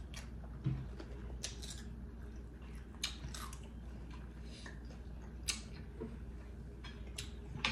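Close-up eating sounds: chewing with scattered wet mouth clicks and lip smacks every second or so, over a steady low hum.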